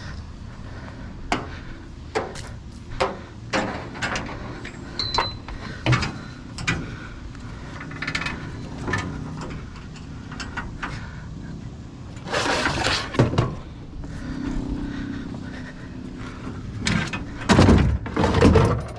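A run of knocks and clanks from items being handled, with longer scraping and rustling bursts about two-thirds of the way in and near the end, over a steady low engine hum.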